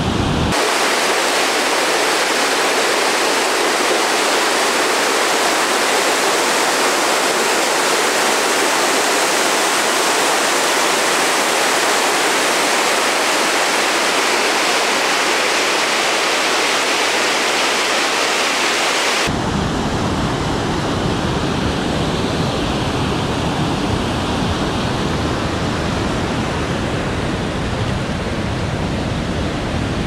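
Sixteen Mile Creek in flood after heavy rain, rushing over rocks and falls as whitewater: a loud, steady rush of water. Its deep rumble drops away about half a second in and comes back about 19 seconds in.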